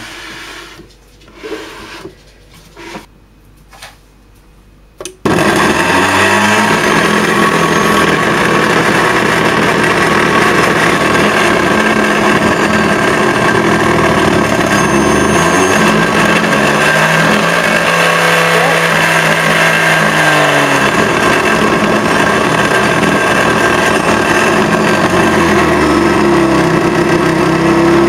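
Bodum electric blender switched on about five seconds in, its motor running loud and steady with the empty jug; the motor pitch shifts for a few seconds in the middle as the speed dial is turned. Before it starts, a few light clicks and knocks of handling.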